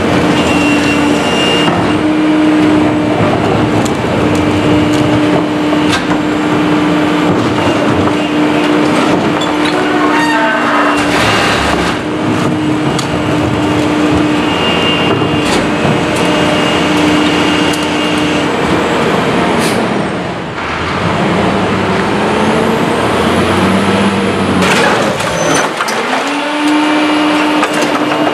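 Pak-Mor rear-loader garbage truck running steadily with a held hum while carts are tipped into the hopper. About twenty seconds in there is a sharp air-brake hiss, then the engine note dips and climbs before the steady hum returns.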